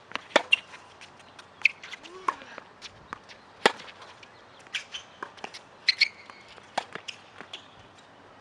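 Tennis rally on an outdoor hard court: sharp, irregular pops of the ball off racquet strings and bouncing on the court, with short squeaks of sneakers on the surface. The hits thin out near the end as the point finishes.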